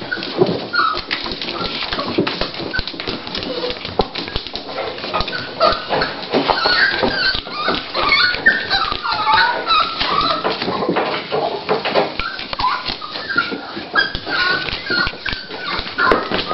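A pregnant miniature pinscher (toy pinscher) scratching and digging at a blanket, a rapid rustling scratch, with high thin whimpers from about five seconds in and again near the end: nesting at the onset of labour.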